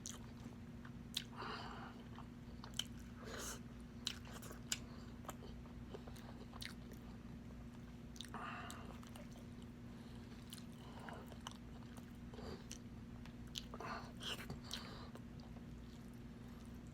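Close-miked eating sounds from a spicy pork adobo meal: chewing, with scattered wet mouth smacks and small clicks at irregular intervals over a steady low hum.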